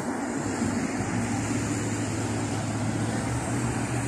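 Steady drone of motor engines under a broad rushing noise.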